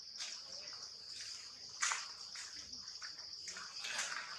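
Steady high-pitched insect drone, with scattered small clicks and rustles and one sharper click about two seconds in.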